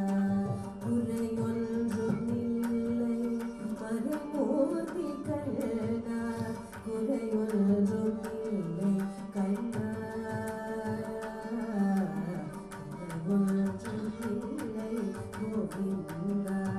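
Carnatic music: a steady drone under a gliding melody, with frequent hand-drum strokes.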